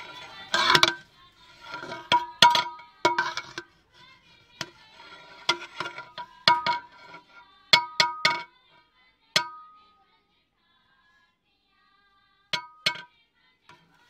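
Long metal spatula stirring and scooping rice in a large aluminium degh, with repeated clinks and clanks as it strikes the pot, which rings after each hit. After a pause of about two seconds, two last knocks come near the end.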